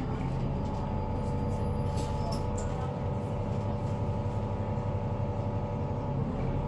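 Inside a Volvo B9TL double-decker bus on the move: the low drone of the running engine, with a steady whine held on one pitch over it. A few light rattles come about two seconds in.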